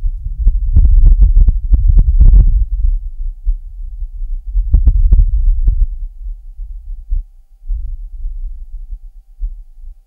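Martian wind recorded by the Perseverance rover's microphone, with the rover's own noise filtered out. It is a low rumble that gusts up strongly from about half a second to two and a half seconds in, gusts again around five seconds, and then thins out.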